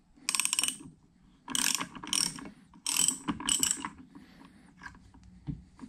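Socket ratchet wrench clicking in about five short runs of strokes, tightening the fastener that holds the timing pulley on the Bridgeport mill's bull gear pinion shaft.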